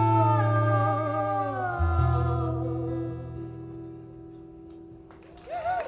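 A live band ends a song: a final sung note over a guitar chord slides down, then the chord rings on and fades away. Just before the end a new held voice note rises in as the crowd begins to cheer.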